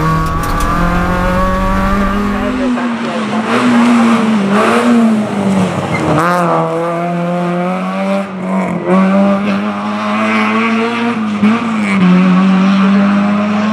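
Peugeot 306 Group A rally car's engine revving hard, its pitch climbing and dropping again and again with the gear changes. For the first few seconds it is heard from inside the cockpit with a heavy low rumble. After that it is heard from the roadside, with a sharp swoop in pitch about six seconds in as the car goes by.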